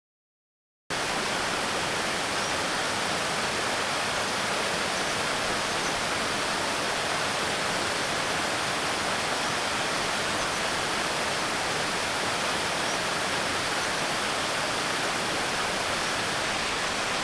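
Steady rush of flowing water from a mountain stream or waterfall, starting abruptly about a second in and cutting off suddenly at the end.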